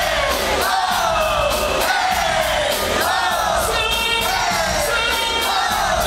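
Live concert music played loud through a venue sound system, with a steady beat, vocals that repeat a falling line about once a second, and a crowd in the audience.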